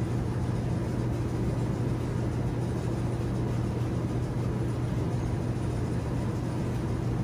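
Steady low mechanical rumble with a constant hum, from a motor or vehicle running.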